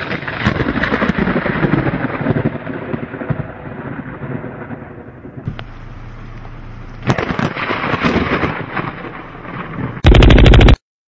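Battle sound effects: a dense crackle of gunfire with a low rumble, then, about ten seconds in, a very loud burst of rapid machine-gun fire.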